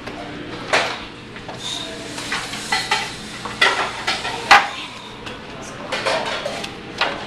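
Metal utensils and dishes clinking and clattering in irregular sharp knocks, some ringing briefly, the loudest about four and a half seconds in.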